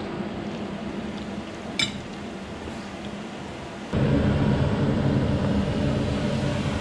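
A single clink of a utensil on the pan about two seconds in. Then, about four seconds in, a louder steady rushing noise starts: a pot of crayfish boiling hard on the stove.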